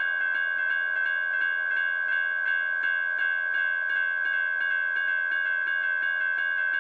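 Railroad crossing bell ringing continuously, about three strikes a second over a held ringing tone.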